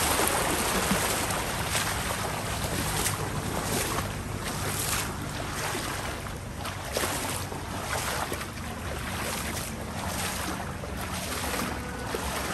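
Rushing, splashing water with wind buffeting the microphone over a steady low engine hum.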